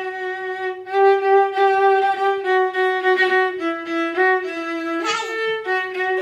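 Viola bowed in long held notes, moving slowly between a few neighbouring pitches: one note held for about three seconds, then shorter steps down and back up.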